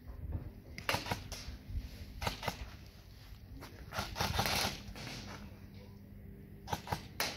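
Scattered airsoft gunfire: sharp snapping shots, singly and in pairs. A denser string of shots comes about four seconds in, and two more shots come near the end.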